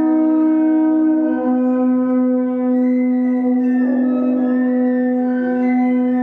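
Instrumental music: a single low note held as a steady drone, with a second, slightly higher note sounding over it for the first second and a half.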